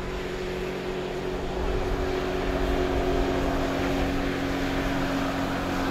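Jet ski running at speed across the water: a steady engine drone with the rush of water and spray, growing louder about a second and a half in.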